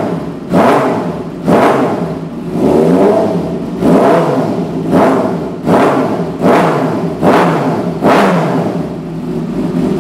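Kawasaki ZX-636 inline-four engine revved through a short custom exhaust with stock headers: about a dozen quick throttle blips, roughly one a second, each rising sharply and dropping back to idle, with one longer held rev about three seconds in.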